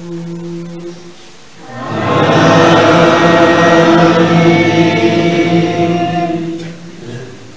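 A single man's chanting voice, held on one note, ends about a second in. Then the congregation of men answers together in a loud, drawn-out unison chant that lasts about five seconds before fading out.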